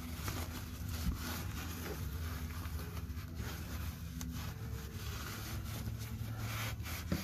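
Light rubbing and handling noise from an oil-covered hand working right at the camera, over a low steady hum.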